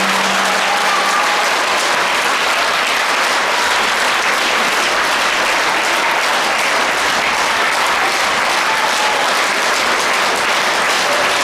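Theatre audience applauding steadily; a held low musical note dies away about a second in.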